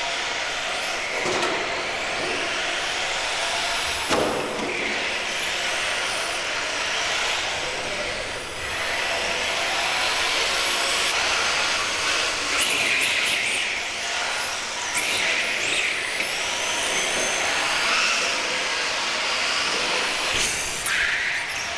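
Radio-controlled model touring cars running on the track: high-pitched motor whines that rise and fall as the cars speed up and slow down, over a steady rushing noise, with a few brief swells.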